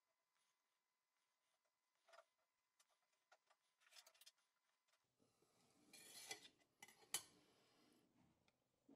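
Faint ticks of a pencil tip marking paper along a steel ruler, then paper and ruler being handled, with a rustle and a sharp tap near the end. All very quiet.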